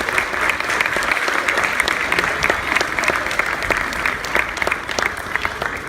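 An audience clapping and applauding steadily, many hands at once.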